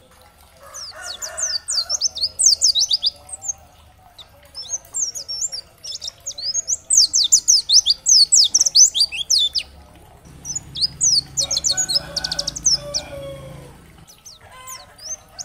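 White-eye (pleci) singing: rapid, very high twittering phrases of quick falling notes, repeated in bursts with short pauses between them.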